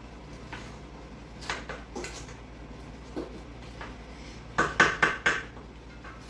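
Wooden spoon stirring cake batter in a stainless steel mixing bowl, with scattered scrapes and knocks against the bowl. A quick run of four louder knocks comes a little past halfway.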